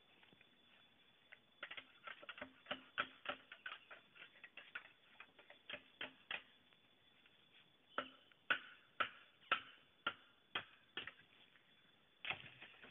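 Machete strokes on a green bamboo pole: a run of short, sharp knocks, two or three a second, pausing briefly partway through.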